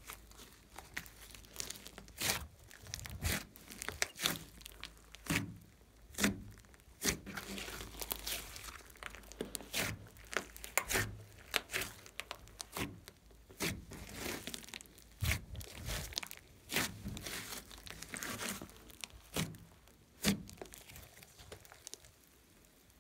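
Thick glossy slime being stretched, folded and pressed by hand, making sticky crackles and irregular pops.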